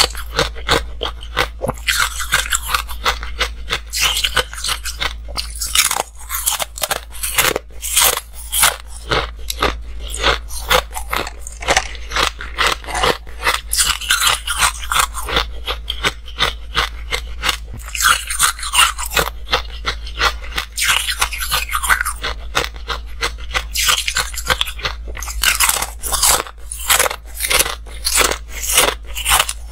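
Ice sticks bitten and chewed close to the microphone: a constant run of sharp, crisp cracks and crunches, thicker in spells every few seconds.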